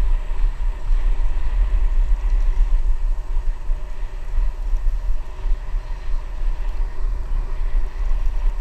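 Wind rumbling and buffeting on a GoPro's microphone as a bicycle rolls along a wet paved road, a steady, deep, unsteady rumble.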